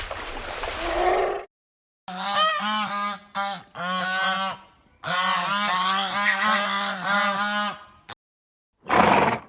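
Waterfowl honking: rapid repeated calls in two long runs, with a short loud burst of a different sound near the end.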